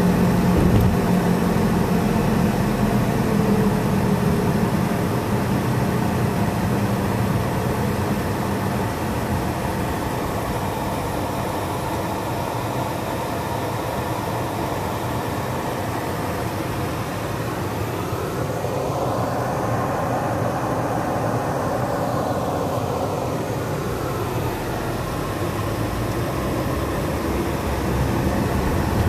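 Car cabin noise while driving: steady engine and road noise. The engine hum fades as the car slows to a stop at a traffic light and idles, then the noise rises again near the end as the car pulls away. About two-thirds in, a sound rises and then falls in pitch over a few seconds.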